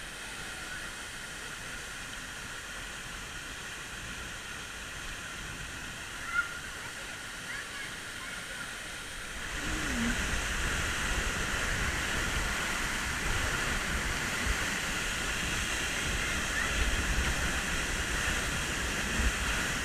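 Steady rush of river and waterfall water, becoming louder suddenly about halfway through.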